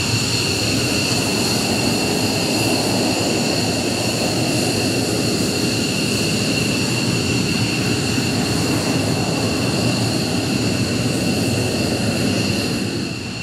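JASDF F-15J Eagle's twin turbofan jet engines running at taxi power: a steady high whine over a loud rush. The level dips slightly near the end.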